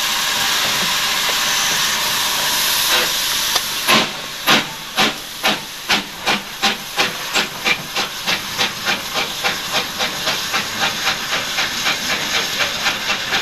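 LMS Fowler Class 3F 'Jinty' 0-6-0 tank engine No. 47279 hissing steam, then starting away about four seconds in. Its exhaust beats begin at about two a second and quicken to about four a second as it picks up speed, over the hiss of steam from the open cylinder drain cocks.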